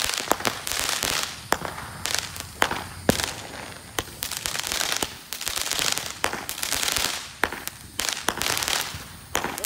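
Aerial fireworks going off overhead: sharp bangs at uneven intervals, many in quick succession, with crackling and hissing between them.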